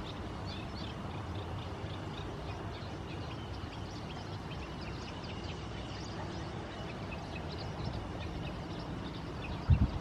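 Marsh ambience: scattered faint high chirps from distant small birds over a steady low rumble, with a short low thump near the end.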